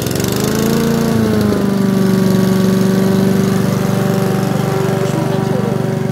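Petrol push lawn mower engine running just after being pull-started, with its throttle on the fast (rabbit) setting. It picks up speed over the first second, then holds a steady, even run.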